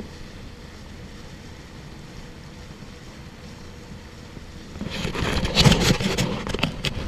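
Steady rush of water and spray along a kayak's hull as it is towed through a motorboat's wake, with the boat's outboard motor running faintly ahead. About five seconds in, loud irregular knocks and rumbles as the kayak-mounted camera is grabbed and swung around.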